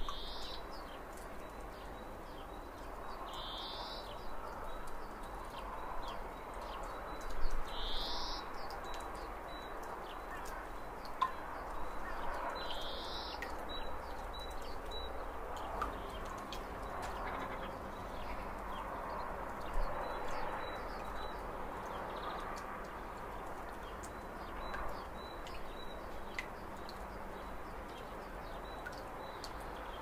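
Steady rush of whitewater rapids, with a bird giving four short rising calls about four seconds apart in the first half.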